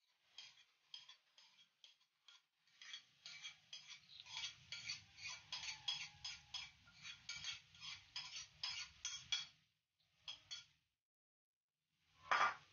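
A utensil scraping ground peanuts out of a bowl into a wok of boiling spice liquid, in quick repeated strokes about three a second. The strokes are sparse at first, then steady, and stop about two seconds before the end.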